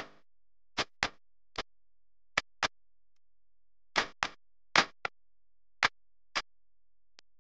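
A dozen or so short, sharp ticks over silence, some in quick pairs, in an uneven ticking rhythm.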